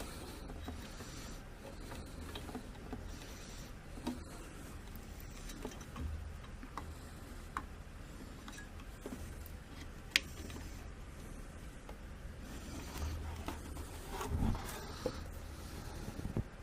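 Plastic push-pin fasteners of a CPU cooler being twisted to lock onto a motherboard: faint scraping and rubbing from handling, with scattered small clicks and one sharper click about ten seconds in.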